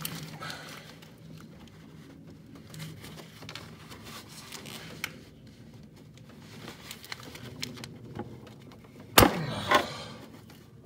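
Quiet creaks and small metal clicks while a wrench is strained on a seized oil filter adapter bolt on a Jeep 4.0 engine, then a single sharp, loud crack about nine seconds in as the bolt breaks loose.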